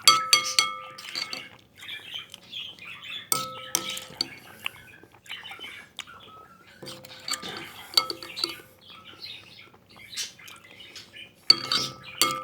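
Metal utensil clinking against a glass several times, each strike ringing briefly at the same pitch, with softer scraping between the strikes.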